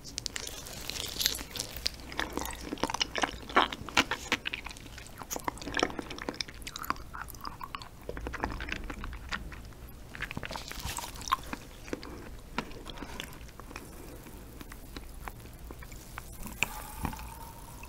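A person eating raw stingray liver: close-up wet biting and chewing of the soft liver, with many small mouth clicks and smacks. Near the end comes a sip from a bowl.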